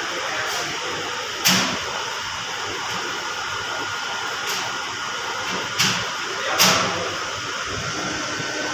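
Steady background noise with a faint high tone, broken by four sharp clicks or knocks: one about a second and a half in, and three more in the second half.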